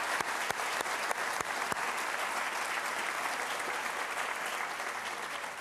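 Audience applauding, the clapping thinning and dying away near the end.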